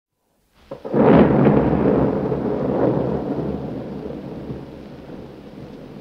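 Large explosion of a WWII V2 rocket: a short crack, then the main blast about a second in, followed by a long rumble that slowly fades.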